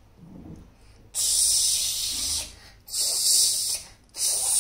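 Loud hissing 'sss' sounds made with the mouth, in three bursts of about a second each with short gaps between them.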